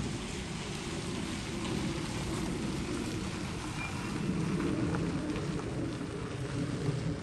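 Steady low rumble and hiss of outdoor background noise, with a brief faint high peep about four seconds in.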